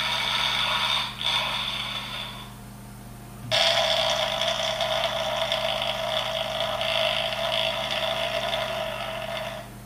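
A body-sounds sound machine playing two long rasping sound effects through its small speaker, about three seconds then, after a short pause, about six seconds, over a steady electrical hum.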